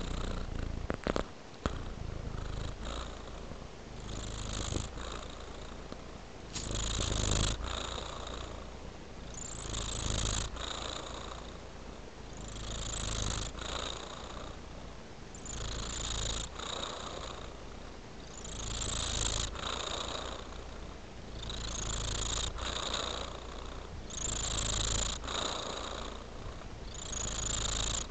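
A tabby-and-white domestic cat purring steadily while dozing. The purr swells and eases with each breath, about once every three seconds. A few sharp clicks sound in the first two seconds.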